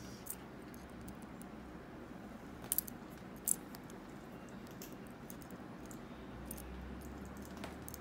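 Faint metallic clicks and light scraping of a lock pick working the wafers of a wafer cam lock. A quick pair of sharper clicks comes just before three seconds in, then a louder single click about half a second later, around when the pick comes out of the keyway.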